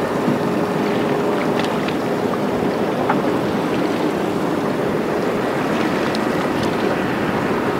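Steady wind and choppy sea water around a small open boat, with a few faint ticks.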